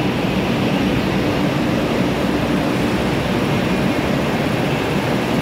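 Steady mechanical drone and din of a busy railway platform beside a standing passenger train, even throughout with no separate knocks or horns.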